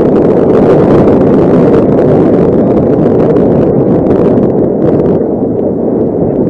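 Strong wind buffeting the microphone: a loud, rumbling rush with no clear tone, easing a little after about five seconds.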